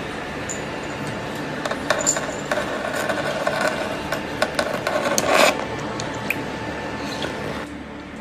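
Toothbrush scrubbing algae off aquarium glass: scratchy rubbing strokes and clicks, busiest from about two to five and a half seconds in, over a steady background hiss.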